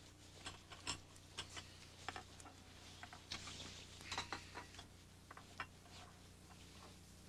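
Near silence: a low steady hum with a scatter of faint, irregular clicks and rustles, mostly in the first five and a half seconds.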